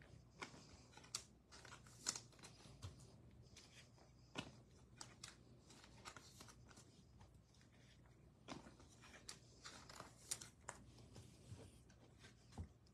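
Trading cards being handled: faint, scattered flicks and taps as cards are picked up, slid and set down on a tabletop mat.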